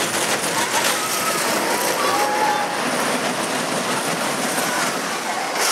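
Small family roller coaster train running along its tubular steel track, its wheels rumbling and rattling as it passes close by and carries on.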